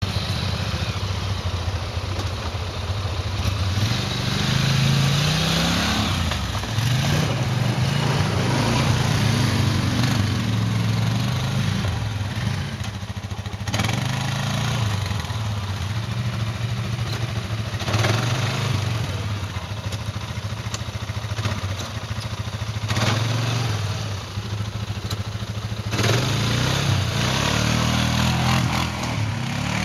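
Quad bike (ATV) engines working under load through deep mud. The engine note rises and falls again and again as the throttle is opened and eased off.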